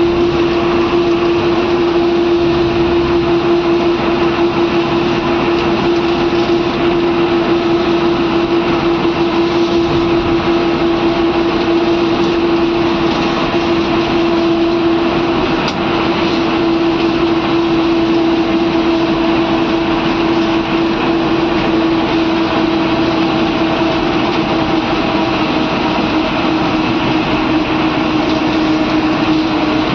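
Tata bus engine running steadily at cruising speed, heard from inside the driver's cab. A strong steady droning tone sits over engine and road noise and dips slightly in pitch near the end.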